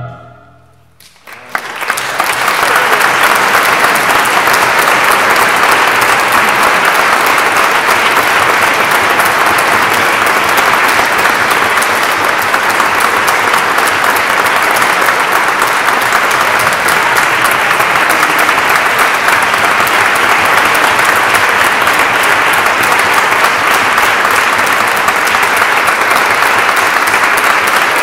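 Audience applauding in a concert hall. It breaks out about a second in, after a brief hush as the last sung note dies away, and then holds steady.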